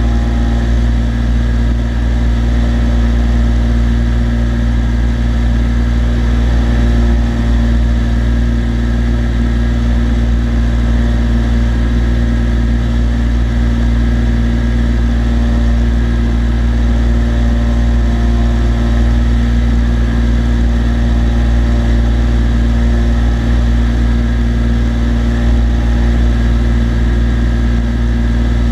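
Cessna TU-206D's turbocharged six-cylinder engine and propeller running steadily in flight, heard from inside the cabin as an even, unbroken drone with a strong low hum.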